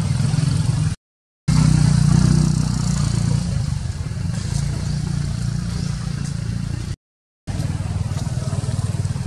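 An engine running steadily with a low, even throb, cut off twice by brief dropouts to silence.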